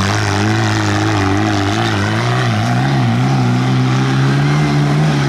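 Tractor engine running steadily under load, its pitch wavering slightly and rising a little about four seconds in.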